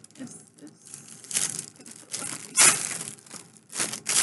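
Clear plastic packaging crinkling and rustling in the hands as an item is unwrapped, in a series of irregular crackly bursts, the loudest just under three seconds in.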